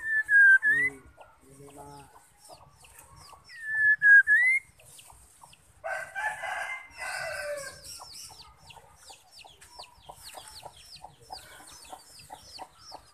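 White-rumped shama giving two loud whistled notes, each dipping and then rising, about three and a half seconds apart. A rooster crows in the background about six seconds in, followed by a run of rapid, short, high chattering notes.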